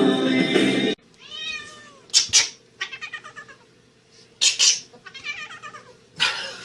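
Music cuts off about a second in, then a domestic cat meows repeatedly: several drawn-out, rising-and-falling meows with two or three short, louder, shriller cries between them.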